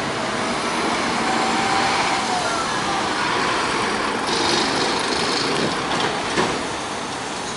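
MAN city bus driving slowly past at close range, its engine running over street traffic noise, with a faint whine early on and a hiss of air about four seconds in.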